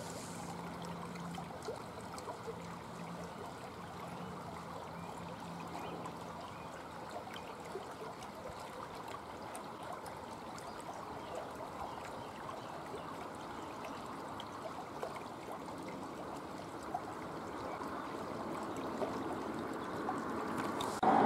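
Small garden waterfall trickling and splashing steadily into a pond.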